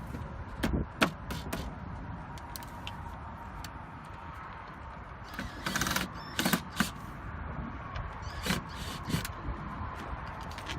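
Sharp taps and knocks as a 1987 Range Rover Classic's door trim panel is tapped home onto its clips: a few about a second in, a cluster around the middle, and two more near the end, over a faint steady hum.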